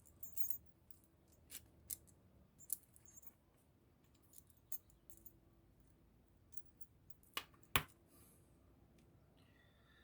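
Scattered faint clicks and small metallic taps of hand tools and bolts being handled, with one sharper knock about three quarters of the way through.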